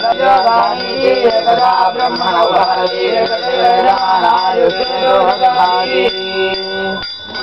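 A man chanting a Sanskrit mantra in a sung, melodic voice, holding a long note near the end, while a puja hand bell rings continuously behind it.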